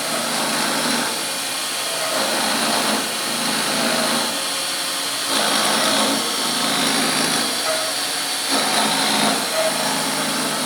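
CNC milling machine cutting metal: spindle and cutting noise that swells and eases every second or two as the tool moves through the part.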